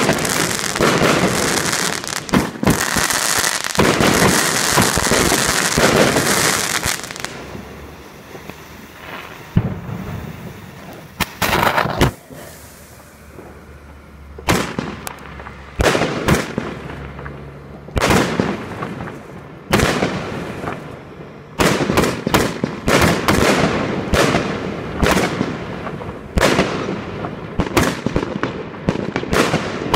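Consumer firework cake (Pangu Garden Party 1, 150 shots) firing. For the first seven seconds or so it gives a dense stream of crackling and bangs. After that it is quieter, with single shots bursting every second or so and crackle between them.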